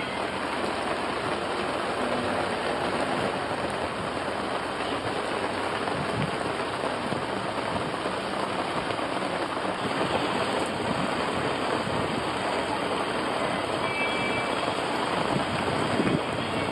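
Heavy tropical rain pouring down on the sea and the sailboat, a steady even hiss.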